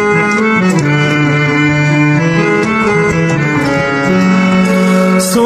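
Background music: an instrumental break in a Hindi film song, a melody of held notes stepping from pitch to pitch over accompaniment.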